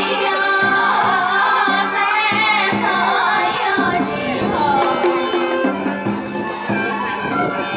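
Women singing a Vietnamese folk song with a wavering, ornamented voice, accompanied by a live ensemble of traditional Vietnamese instruments, with a held low tone and short percussive strokes.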